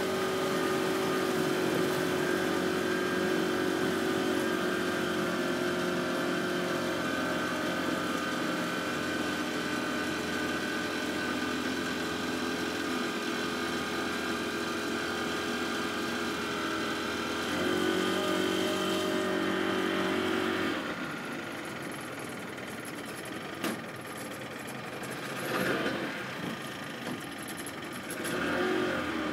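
Boat engine running steadily. About two-thirds of the way in it revs up a little, then drops away to a much quieter level, with a single click, and it picks up again right at the end.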